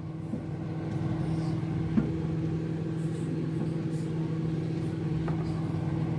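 Steady mechanical hum of a small motor or appliance, with one sharp click about two seconds in.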